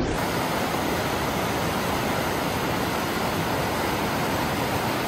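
Fast mountain river rushing over rocks in a steady, even wash of whitewater noise.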